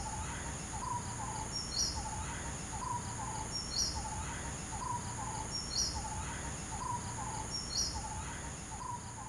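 Insects and birds: a steady high-pitched insect drone, with a bird's short lower call and a higher chirp repeating together about every two seconds.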